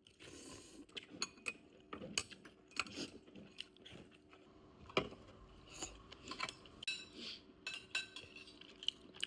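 Eating utensils clicking and clinking against dishes in irregular light taps during a meal.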